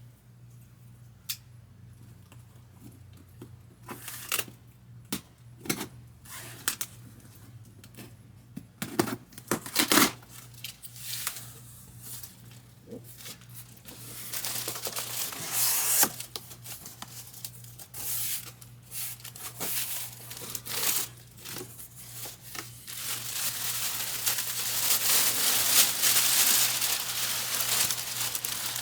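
Packaging being opened by hand: scattered knocks and taps from the box, then plastic bag and wrapping crinkling and tearing, growing denser and louder in the last several seconds.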